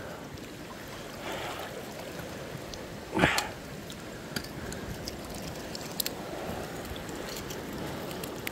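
River water running over rapids, a steady rushing and trickling, with one short louder splash about three seconds in and a few faint clicks.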